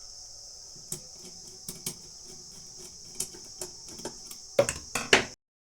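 Steady high-pitched chirring of crickets, with scattered light clicks and knocks of handling work, then a louder clatter of several knocks near the end before the sound cuts off abruptly.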